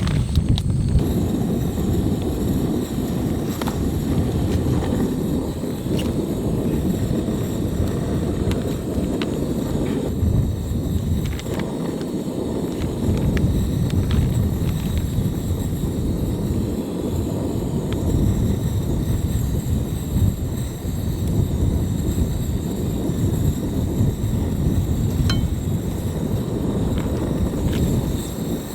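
Strong wind buffeting the microphone in a low, gusting rumble that swells and dips.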